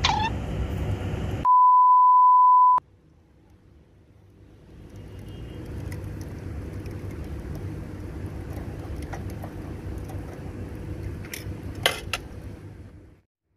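A loud, steady single-pitch electronic beep lasting just over a second, dropped in as an edit. It is followed by a steady background hum that fades in, with a few short clicks near the end.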